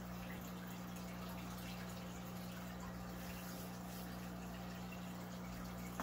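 Steady low hum over quiet room noise.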